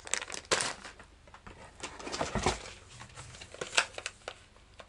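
Plastic packaging of soft-plastic bass lures crinkling and rustling as it is handled, in short irregular bursts.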